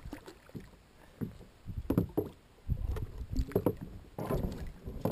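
Water lapping against a kayak hull, with irregular knocks and clatters of gear being handled on the kayak, the loudest about two seconds in and again near three and a half seconds.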